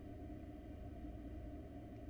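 Steady low background hum and rumble, with a faint high steady tone, and no calls or sudden sounds.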